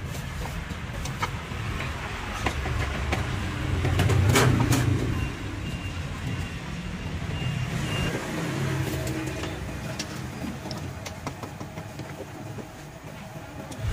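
Street traffic rumbling steadily, swelling as a vehicle passes about four seconds in, with scattered clinks of metal utensils on a stockpot.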